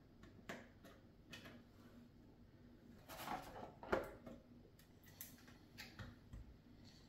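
Faint clicks and rustles of small plastic model parts and wire connectors being handled, with a short cluster of louder taps about three to four seconds in.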